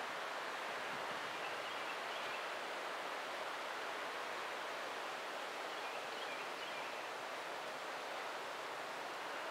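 Steady woodland ambience: an even, unbroken hiss, with faint high chirps about two seconds in and again about six seconds in.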